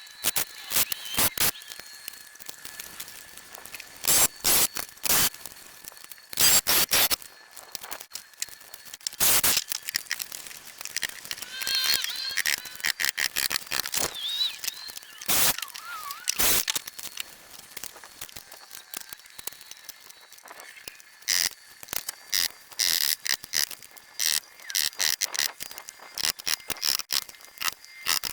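Irregular sharp clicks and knocks of hand carpentry work, some in quick clusters, with a few short bird chirps about halfway through.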